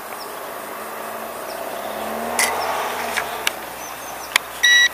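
A few sharp handling clicks as a toy quadcopter and its radio transmitter are switched off and on again, then near the end a loud, high electronic beep lasting a fraction of a second from the transmitter powering up. A steady faint hiss and buzz lies underneath.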